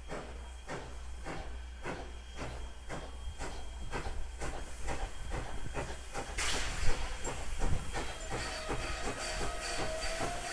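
Steam train on the move, with a steady run of evenly spaced beats over constant steam hiss. About six seconds in a sudden rush of hiss starts, and a faint, slowly rising squeal comes in near the end.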